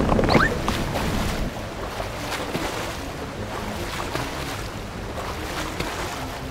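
Steady rain and sloshing floodwater, a storm ambience sound effect.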